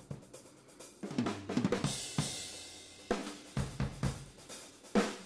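Raw, unmixed studio drum recording playing back: kick, snare and cymbal hits, sparse for the first second, then a busy run of hits with a cymbal wash about two seconds in.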